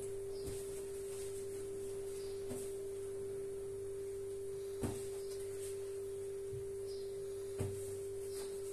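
A steady, unchanging single-pitch tone with a faint low hum beneath it. Two light knocks, about five and eight seconds in, as lemons are handled on the counter.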